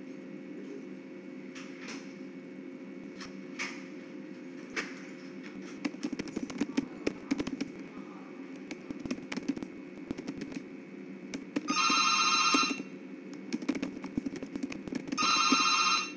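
Telephone ringing twice with an electronic ring, each ring about a second long, over a steady low room hum and scattered clicks.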